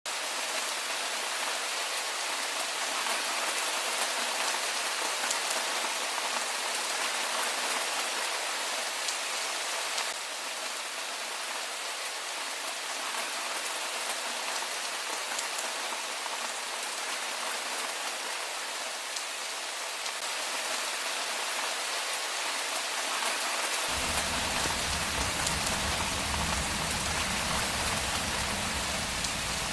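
Steady rain falling, a dense even hiss of many drops on a surface. A low rumble joins underneath near the end.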